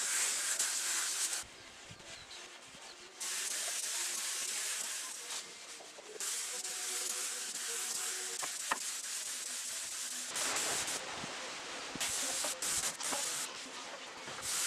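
Compressed-air spray gun hissing as it sprays oil-based wood stain. The hiss starts and stops with the trigger: a pause soon after the start, long runs in the middle, and short bursts near the end.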